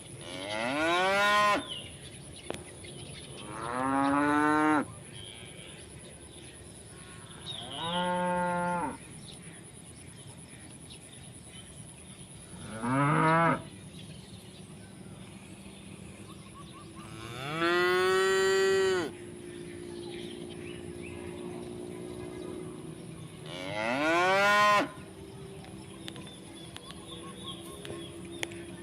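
Cattle mooing, calling to one another: six long moos a few seconds apart, each rising in pitch.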